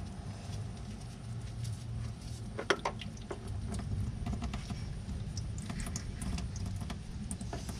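Engine oil pattering and running into a catch pan as the oil filter is unscrewed and drains, with a few light clicks of handling near the middle.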